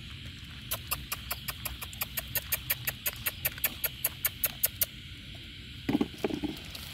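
A rapid, evenly spaced run of sharp clicks, about six a second, growing louder over about four seconds and then stopping, followed by a brief pitched cry about a second later.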